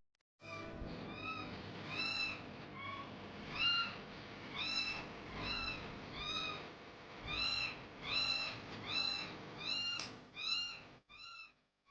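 A baby kitten meowing over and over: about fifteen short, high-pitched meows, a little over one a second, over a faint hiss. The meows stop just before the end.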